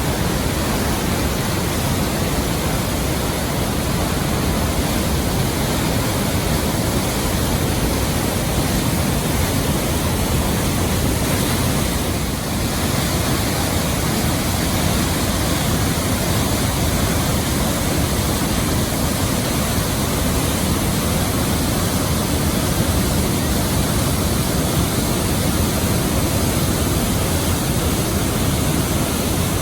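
Athabasca Falls: the glacier-fed Athabasca River pouring into its gorge, making a steady roar of falling water.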